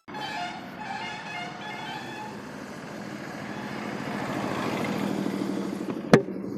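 Motorcycle engine running with an even, rapid pulsing that grows somewhat louder a few seconds in, with a sharp click about six seconds in.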